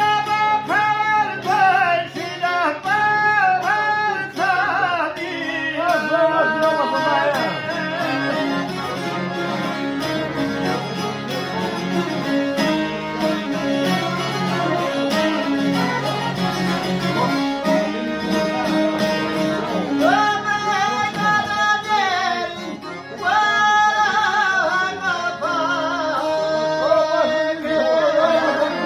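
Albanian folk song: singing over fiddle and plucked-string accompaniment, the melody held in long, ornamented notes.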